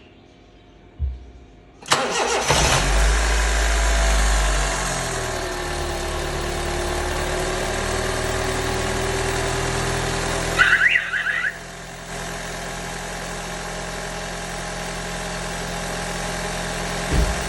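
A 2005 Honda Civic's cold engine is cranked and catches about two seconds in. It then runs at a raised cold idle whose pitch slowly drops and settles into a steady, smooth idle with no vibration, a sign that all four cylinders are firing again after the coil connector repair. There is a brief squeak about halfway through.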